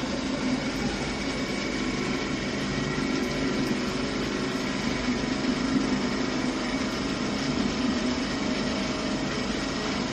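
Machinery running at a steady speed, a constant drone with several held tones and no hammer blows.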